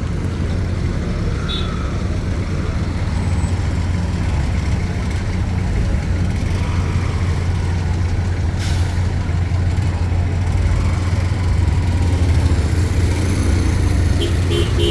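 Road traffic noise: a steady low rumble of vehicles, with a single sharp knock about eight and a half seconds in.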